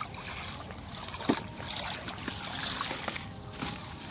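Rustling and knocking as a woven plastic sack is handled and plastic bottles are taken out and set down on the ground, with a sharp knock about a second in.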